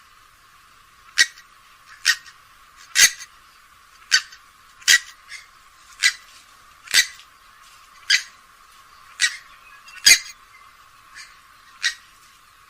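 Grey-headed swamphen giving short, sharp calls about once a second, about a dozen in all, some fainter than others. The sound is thin, with its low end cut away.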